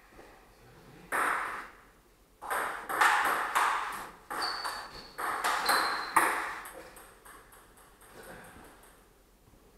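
Table tennis rally: the ball clicking back and forth off bats and table in quick succession, echoing off the room's hard walls. The hits start about a second in and stop about six and a half seconds in, followed by fainter light ticks.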